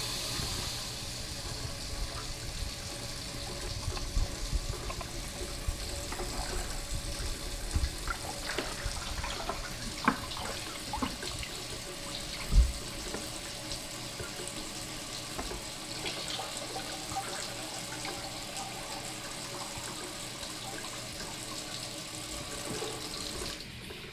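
Kitchen faucet running cold water steadily into a sink, with a few knocks and a low thump about halfway through as a brined turkey is handled.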